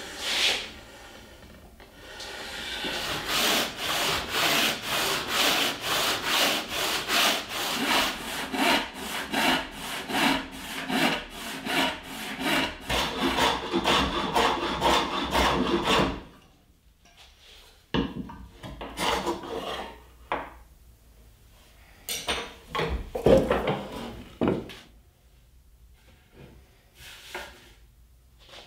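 Handsaw cutting through a thick laminated oak countertop, splitting it down its length in a fast, steady rhythm of push-and-pull strokes. The sawing stops about sixteen seconds in, and a few shorter, separate wood sounds follow with gaps between them.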